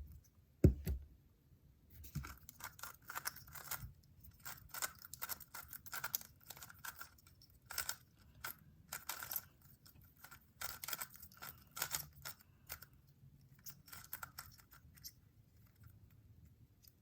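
A magnetic GAN megaminx being turned quickly in a solve: irregular flurries of short clicks and scratchy swishes as the faces turn, with fingernails scraping audibly on its matte plastic finish. Two sharp clicks come right at the start, and the turning dies down near the end.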